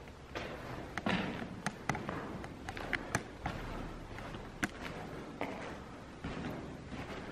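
Footsteps scuffing and crunching over a gritty stone floor strewn with debris, with irregular sharp clicks and knocks about every half second to second.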